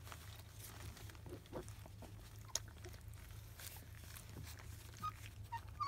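Labrador retriever puppies, 25 days old, licking and lapping their first weaning food from a plastic dish: faint, scattered wet smacks and clicks over a low steady hum.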